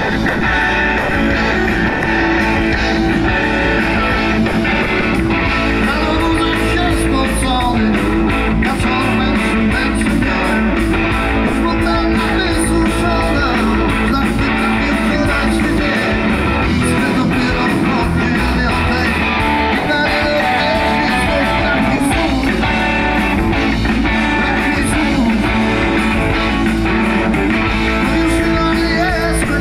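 Live rock band playing loud: electric guitars, keyboard and drums with a steady cymbal beat, with a male singer on vocals.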